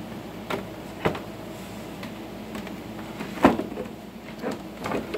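Wooden beehive frames knocking against one another and against a plastic storage tub as they are handled and set in: a few separate sharp knocks, the loudest about three and a half seconds in.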